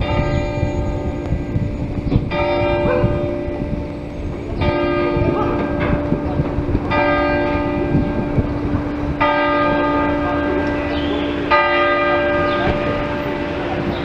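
A single church bell tolling slowly, six strikes a little over two seconds apart, each ringing on into the next.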